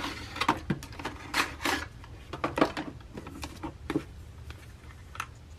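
Handling noises: rustling and a scattered series of light knocks and clicks as a cardboard packaging insert and Dyson Airwrap curling barrels are pulled out of the hard storage case.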